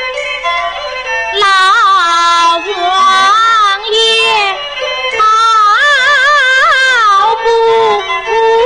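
Peking opera singing in the qingyi (dan) style: a high female voice sings a slow, drawn-out line with wavering vibrato and sliding ornaments on the long notes, with short breaks between phrases.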